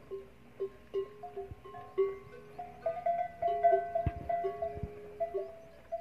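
Bells hung on camels' necks clanking irregularly as the camels move, at least two bells of different pitch ringing over each other. Two low thumps come a little after four seconds in.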